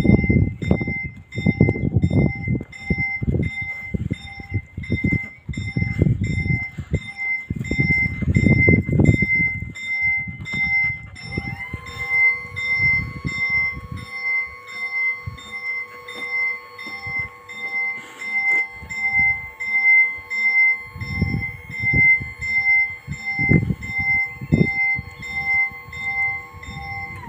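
Italian level-crossing warning bell ringing, a high-pitched ding repeating about twice a second. About eleven seconds in, a steady motor whine rises and holds as the red-and-white barriers lower, cutting off right at the end. Low, irregular rumbles come and go underneath.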